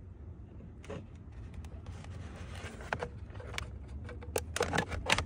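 A plastic fuse block and its wiring being handled and pushed into place under a car's dash: scattered light clicks and scrapes, bunching up near the end, over a steady low hum.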